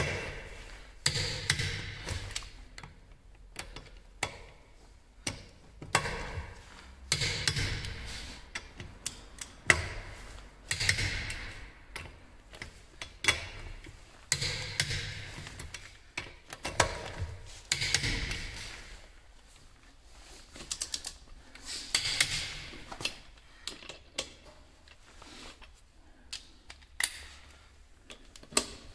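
Hand ratchet wrench clicking in repeated bursts, a burst every second or two, as it turns a car wheel's lug bolts.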